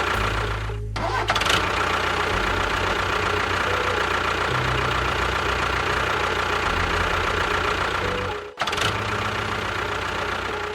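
An engine running steadily, its low note shifting a few times, with short breaks about a second in and near the end.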